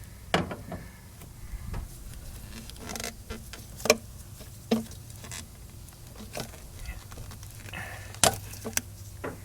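A rubber fuel line being worked off its fitting by hand: irregular sharp clicks and knocks of a tool and fittings against metal, the loudest about four seconds in and again near the end, over a low steady hum.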